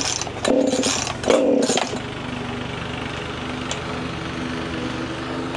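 Two-stroke chainsaw being pull-started: three quick pulls of the recoil starter in the first two seconds, the engine turning over without catching, then a pause of a few seconds before the next pulls.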